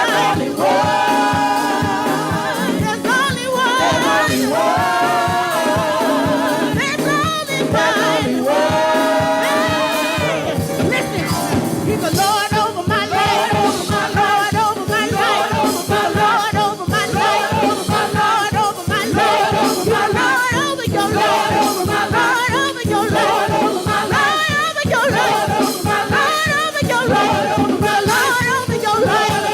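Gospel praise team singing, long wavering held notes at first, then from about twelve seconds in a busier passage over a steady beat.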